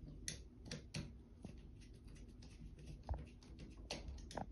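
Faint, irregular clicks and scrapes of a flat screwdriver on the terminal screw of a pull cord switch as a wire is fastened in.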